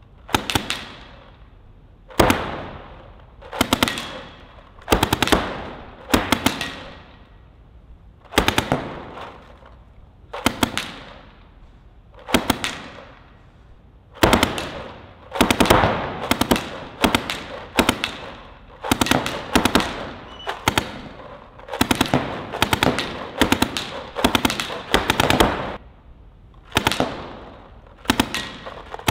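Paintball marker firing quick strings of several rapid shots, a string every second or two and more often in the second half, each string echoing around an indoor arena.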